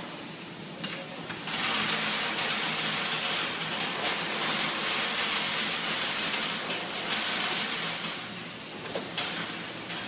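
A metal tray carrying a furnace temperature-profiling system's thermal barrier is dragged out of a hot rotary hearth furnace with a hooked rod. From about a second and a half in until near the end it scrapes and rattles metal on metal, over a steady burner hiss. There are a few sharp knocks at the start and near the end.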